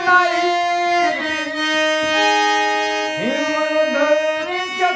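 Hand-pumped harmonium playing a melody, its reeds holding a steady low note under changing higher notes.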